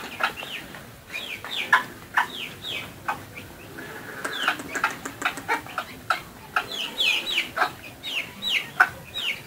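Chicks peeping from beside a foraging hen: a steady stream of short, high calls falling in pitch, several a second, with some softer clucking.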